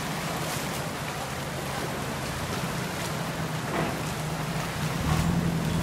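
Fast-flowing muddy floodwater rushing through a street, a steady wash of water noise, perhaps with rain falling. Under it runs a low steady hum that grows louder about five seconds in.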